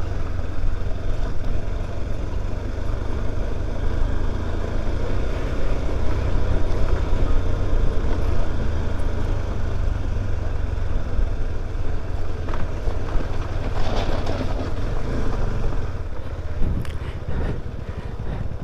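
Motorcycle running steadily on the move, a constant low engine drone under road and wind noise.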